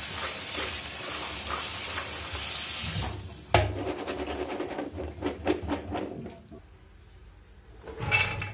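Kitchen tap running onto soaked chickpeas as they are rinsed in a stainless steel sieve. The water stops about three seconds in, followed by a sharp knock and a run of rattles and clicks from the metal sieve and chickpeas as they drain. Near the end comes a short rattle as the chickpeas are tipped from the sieve into a pot.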